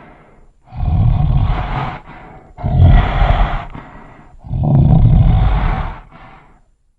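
Custom-designed dinosaur monster roars for the fictional Chimerasaurus Rex: three deep, rough roars in a row, each about a second and a half long, the middle one the loudest.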